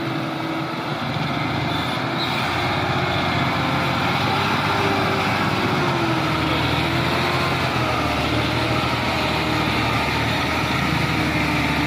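Euro 4 diesel truck engine running steadily, its pitch wavering slightly, with a deeper rumble from about six seconds in. It has a soft, smooth sound, a little smoother than a Euro 2 engine.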